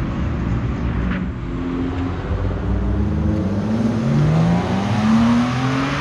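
Sports car engine accelerating hard away from a standstill. A low rumble gives way to a rising engine note that climbs in steps as the car shifts up.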